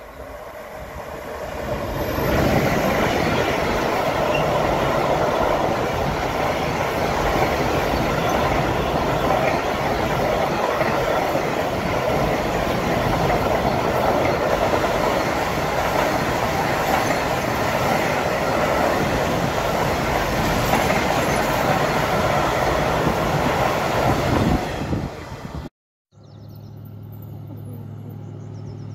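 Intermodal container freight train hauled by a Siemens Vectron electric locomotive passing close by: the noise of the wagons rolling on the rails builds over the first two seconds, then holds loud and steady. It cuts off suddenly near the end.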